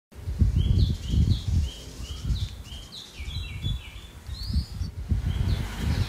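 Garden ambience: a bird calling in a run of short rising-and-falling chirps, about two a second, over louder low gusts of wind noise.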